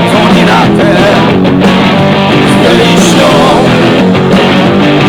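Rock music with guitar played loud through an Xdobo Nirvana 50W portable Bluetooth speaker, steady and continuous.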